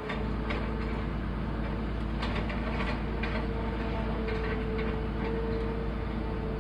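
Hitachi excavator's diesel engine running steadily, with a held whine over it and short sharp knocks every so often.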